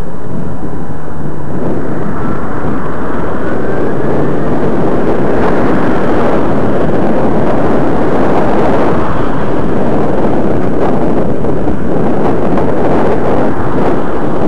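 Loud, steady rush of wind buffeting a head-worn camera's microphone while riding a bicycle along a road, mixed with road and traffic noise.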